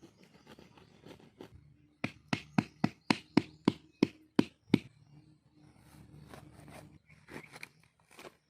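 A quick run of about ten sharp knocks, roughly three a second, lasting under three seconds, with a few softer knocks before it and near the end.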